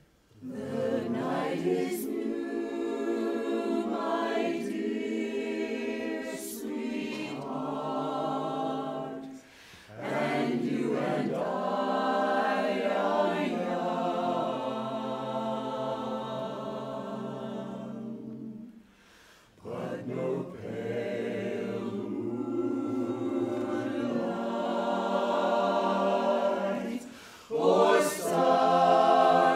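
Mixed-voice barbershop chorus singing a cappella in close harmony, starting about half a second in with sustained chords. The phrases break off briefly about 9, 19 and 27 seconds in.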